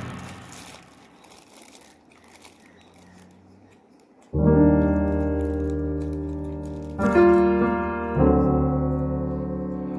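Background music: the end of a rap track dies away, and after a few seconds of quiet a piano comes in at about four seconds, playing slow held chords that ring and fade, with a new chord twice more near the end.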